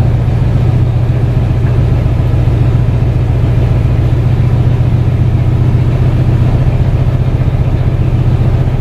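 An engine idling steadily, a loud, even low hum that does not change.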